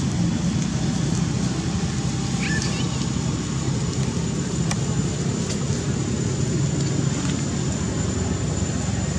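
A steady low rumble of background noise, with a faint, thin high-pitched tone held throughout and a few faint chirps about two and a half seconds in.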